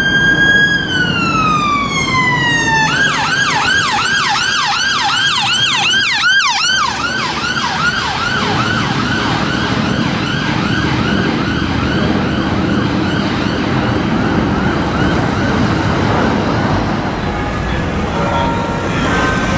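Ambulance rapid response car's electronic siren, with traffic noise. It begins with a slow wail, switches to a fast yelp about three seconds in, and the yelp fades as the car moves away.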